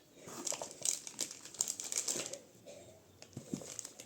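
Packaging crinkling and rustling as it is handled during unboxing, busiest for the first two seconds or so, then softer and sparser.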